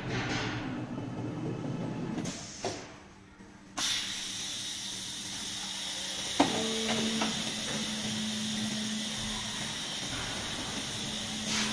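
Automatic-feeding CNC oscillating-knife foam cutting machine running as its suction-cup gantry drags a foam sheet onto the table. A steady hiss starts suddenly about four seconds in, a sharp click comes near the middle, and a low steady hum follows.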